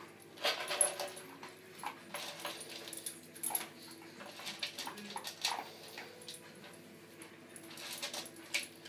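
A miniature schnauzer eating dry kibble from a plastic bowl. It makes irregular crunching and clicking sounds, and the bowl knocks and scrapes on the tile as the dog pushes it along.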